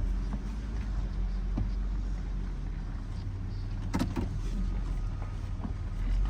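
An engine running steadily with a low, even hum, with a brief knock about four seconds in.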